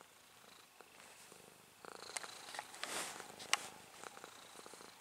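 Domestic cat purring while its chin and cheek are scratched. From about two seconds in, crackly rustling with sharp clicks is the loudest sound: fur and fingers rubbing close to the microphone.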